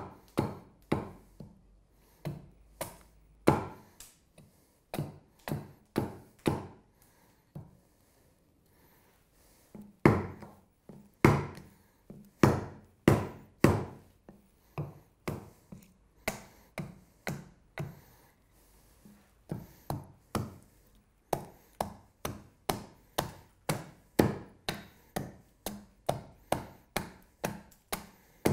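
Small carving hatchet chopping into a wooden spoon blank braced on a chopping stump: a steady run of sharp strikes at about two a second, stopping for a couple of seconds about eight seconds in and then resuming.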